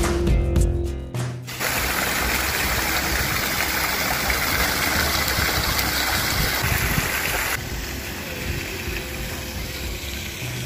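Background music cuts out about a second and a half in and gives way to a steady rushing noise, which turns quieter and duller about three seconds before the end.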